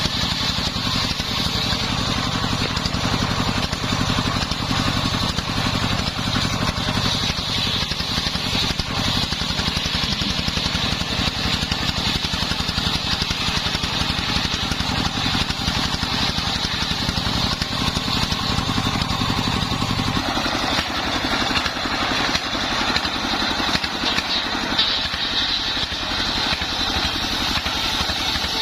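The engine of a homemade circular-saw rig running steadily with a fast, even pulse. About twenty seconds in, the deep engine sound drops back and a higher, noisier sound grows stronger.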